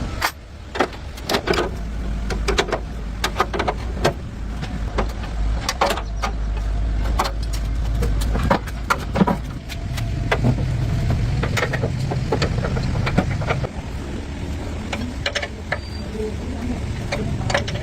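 Workshop sounds: repeated metal knocks and clinks over a low machine hum, which rises to a higher steady hum for a few seconds past the middle.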